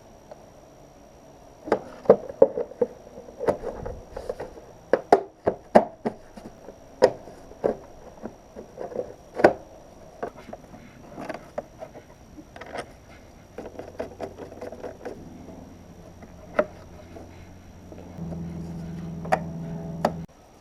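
Irregular sharp clicks and knocks, like tools and parts being handled in a workshop. About two-thirds through a steady low hum starts; it grows louder for the last couple of seconds, then cuts off suddenly.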